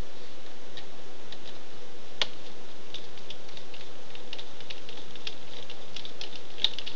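Small Phillips screwdriver backing out tiny laptop screws: light, irregular ticks and clicks of metal tip and screw, with two sharper clicks about two seconds in and near the end, over a steady hiss.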